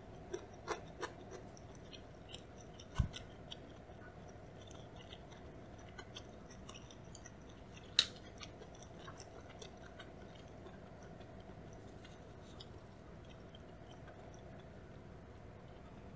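Quiet eating sounds: scattered small clicks and taps from chewing a salmon maki roll and handling chopsticks, with a dull knock about three seconds in and a sharp click about eight seconds in. A faint steady hum lies underneath.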